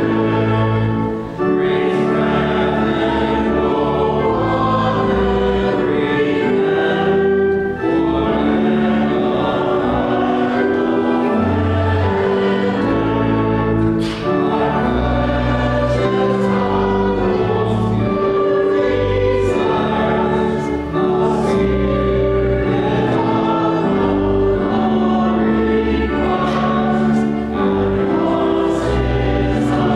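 Many voices singing a hymn in unison or parts, in held notes that break for a short breath about every six to seven seconds.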